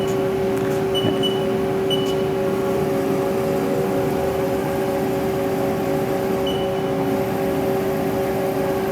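A Haas TM-1 CNC toolroom mill running with a steady whine, with a couple of faint ticks in the first two seconds.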